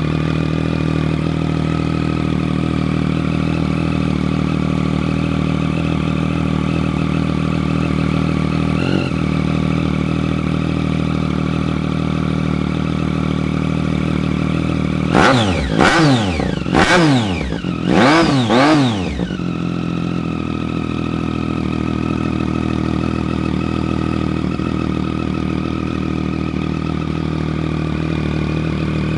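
2014 Triumph Street Triple R's 675 cc three-cylinder engine idling steadily through an Austin Racing GP2R aftermarket exhaust, blipped in a quick run of several sharp revs about halfway through, each rising and falling back, before it settles to idle again.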